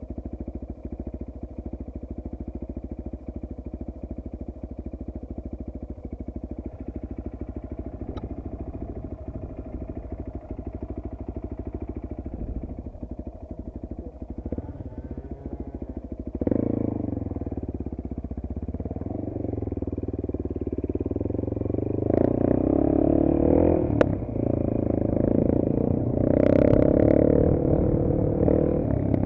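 Single-cylinder dirt-bike engine idling steadily, then growing louder a little past halfway and revving up and down through the rest.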